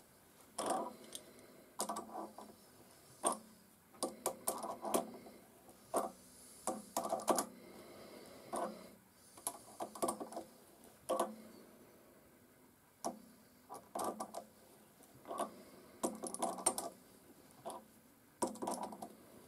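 Adjustable wrench clicking and clinking against a pair of locked nuts on a mini lathe's tool-post stud, in irregular bursts of short metal clicks with brief pauses, as the stud is worked loose.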